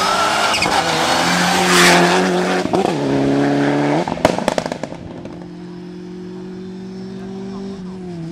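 Rally car engine at high revs passing on a gravel stage, with gravel spraying; the revs dip and come back about three seconds in, followed by a patter of sharp stone clicks. Then a second rally car's engine, quieter and steady, as it approaches.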